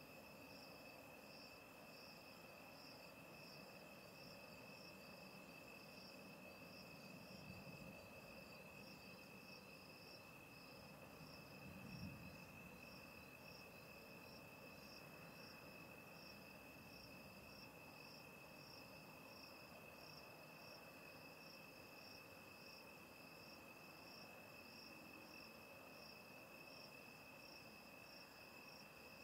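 Faint chorus of night insects: a steady high trill with an evenly pulsing higher chirp above it. There is a soft low thump about twelve seconds in.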